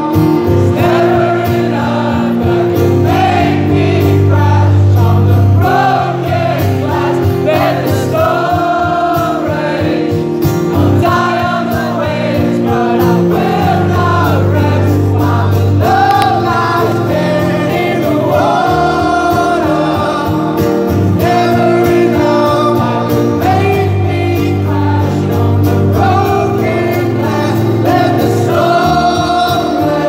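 Live song performance: a man singing lead while strumming an acoustic guitar, over steady held low notes.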